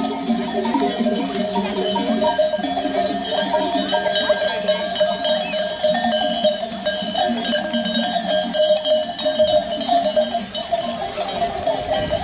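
Many bells worn by a walking flock of sheep clanking and ringing together in a continuous, dense jangle of overlapping tones.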